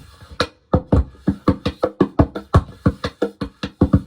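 A fast drum beat of kick-and-snare-like hits, about three to four a second, played through a small bass amp with the multi-effects pedal's bass amp simulator on, which gives the snare hits a brush-like sound.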